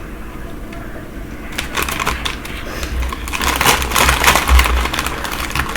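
Dense, rapid crackling and crunching of snack food being handled and eaten, starting about a second and a half in and loudest around four seconds.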